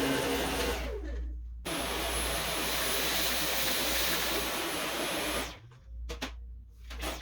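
Dyson V11 Pro cordless stick vacuum running with a steady rushing sound and a thin high whine. It drops out briefly about a second in, then stops abruptly about five and a half seconds in, followed by a few short clatters.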